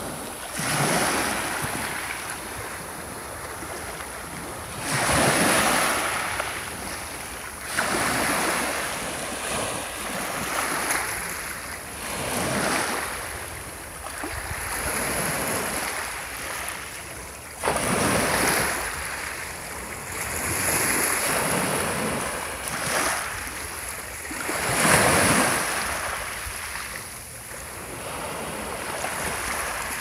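Small sea waves breaking and washing up a pebble beach, a surge of surf every three to five seconds.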